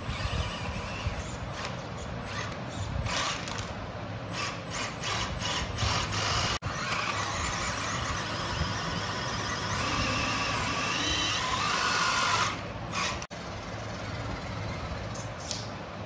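Small electric motor and gearbox of an RC crawler whining in stop-and-go bursts, with a rising whine near the end.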